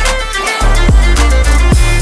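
Background music with a heavy kick drum and deep bass; the bass cuts out briefly about half a second in.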